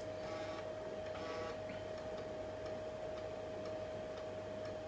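3.5-inch floppy drive of an Elonex LT386SXP/16 laptop reading a disk during DOS setup: two short buzzing stretches of head movement near the start and about a second in, with faint ticks, over a steady high-pitched whine.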